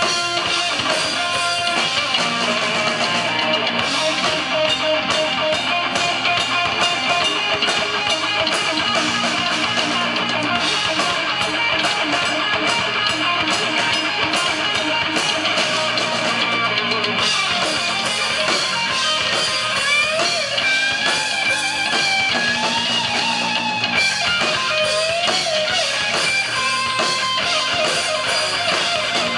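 Heavy metal band playing live: distorted electric guitars, bass guitar and drums at a steady loud level, with high lead lines gliding in pitch through the second half.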